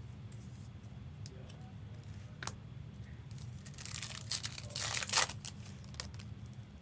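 Trading card pack wrapper being torn open and crinkled in the hands: a dense rustle from a little before the four-second mark to just past five seconds. A few light clicks of cards being handled come before it, over a low steady hum.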